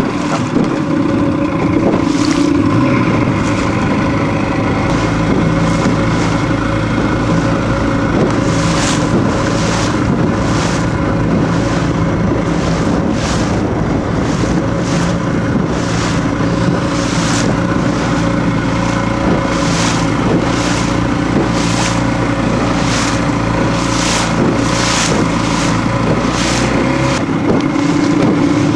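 Motorboat engine running steadily underway. From about eight seconds in, water splashes against the hull roughly once a second.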